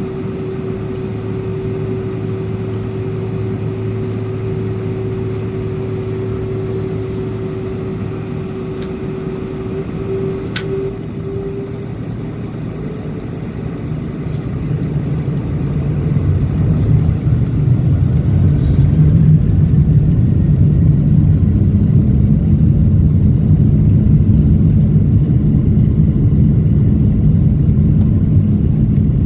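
Cabin noise inside a Boeing 747-400 airliner: a steady rumble with a held tone that stops about twelve seconds in. Then, about halfway through, the four engines spool up and the rumble swells and stays loud, as thrust is set for the takeoff roll.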